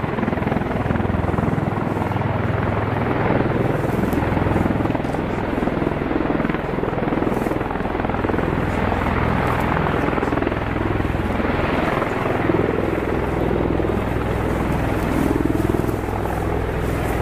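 Three MV-22 Osprey tiltrotors flying low in helicopter mode, their rotors and engines making a steady, loud rotor noise.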